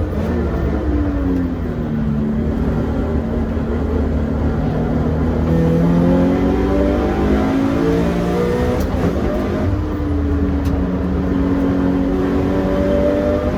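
Toyota 86 race car's engine running hard on track, its pitch climbing and dropping several times as it accelerates and backs off.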